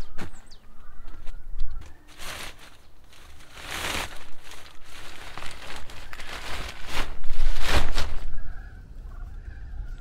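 Plastic film of a low hoop tunnel rustling and crinkling in several loud bursts as the covers are handled and pulled open. The bursts are loudest a little before the end, then give way to a faint warbling sound in the background.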